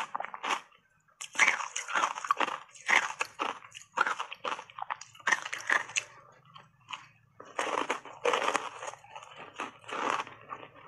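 Ice chunks coated in matcha powder being bitten and crunched between the teeth, a quick run of crisp crunches broken by short pauses while she chews.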